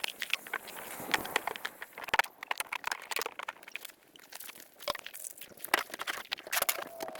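Irregular crunching and crackling clicks, some sharp and loud, with a short lull about four seconds in.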